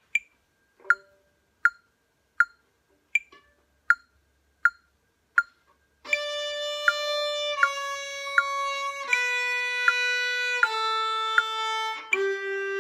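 A metronome clicks steadily, about one click every three-quarters of a second with every fourth click higher. About six seconds in, a viola starts bowing a descending scale at mezzo forte, medium loud, holding each note for two clicks as the pitch steps down.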